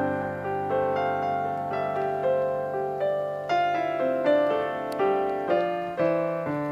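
Background piano music: a slow melody of single struck notes over sustained lower notes.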